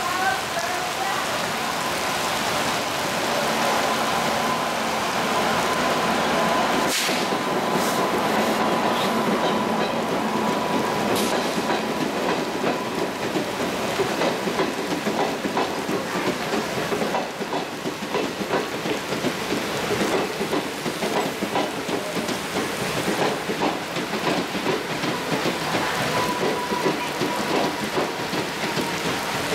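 Express train behind an electric locomotive rolling past a platform in a heavy downpour: steady rain hiss, with the coaches' wheels clicking over rail joints, more and more from about twelve seconds in, and a faint steady whine. A single sharp knock comes about seven seconds in.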